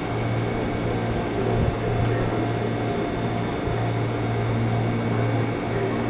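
Steady low machine hum that breaks off briefly twice.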